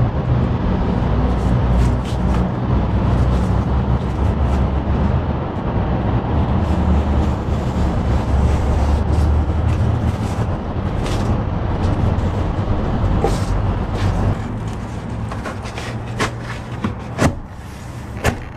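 Low, steady rumble of a motor vehicle engine running close by, which drops away about 14 seconds in. A few sharp knocks and taps follow near the end.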